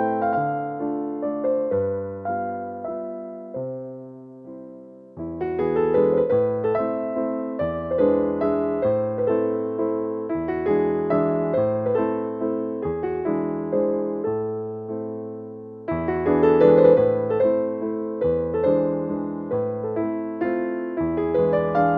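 Background music: a gentle piano (electric piano) tune playing chords and melody, easing off about four seconds in and starting a fresh phrase about a second later.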